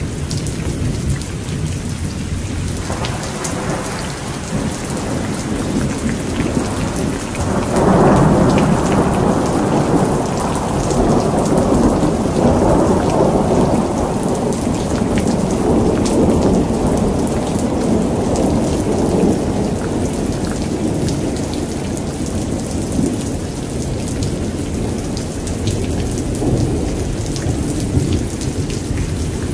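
Heavy rain falling steadily with thunder. A rumble builds about three seconds in, then a loud peal breaks about eight seconds in and rumbles on for some ten seconds. A fainter rumble comes near the end.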